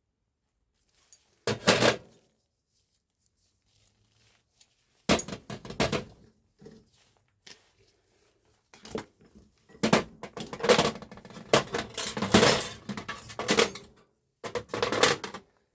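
Metal parts clinking and clattering as they are handled, in several bursts with silent gaps between, the longest run of clatter in the latter half.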